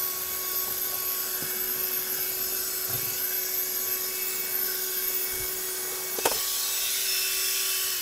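Silvercrest cordless wet-and-dry handheld vacuum cleaner running steadily over a car floor mat: a high motor whine with rushing air. A single sharp knock about six seconds in, and the motor starts to wind down at the very end.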